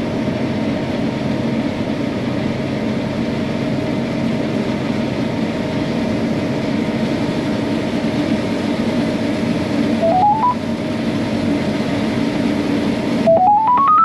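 Combine harvester running steadily under load, heard from inside the cab while its unloading auger empties grain into a cart alongside. A short run of rising electronic beeps sounds about ten seconds in, and again just before the end.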